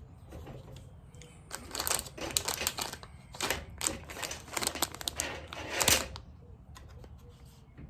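Rapid clicking and rattling of a chainsaw chain and small metal parts being handled, in two spells: one starting about a second and a half in, the other about three and a half seconds in.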